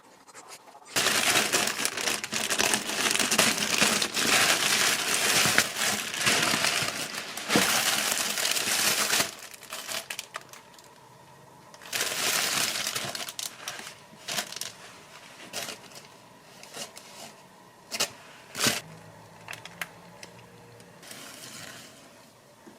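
Crinkling and rustling of something being handled, in two long stretches, followed by a few scattered clicks and knocks.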